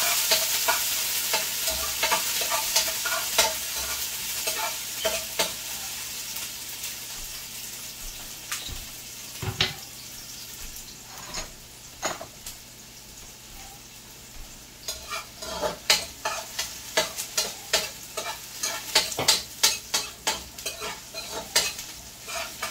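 Chopped onion frying in hot oil in a metal pot, stirred with a metal spoon. The loud sizzle fades steadily over the first half. From about two-thirds of the way through, the spoon clinks and scrapes rapidly against the pot.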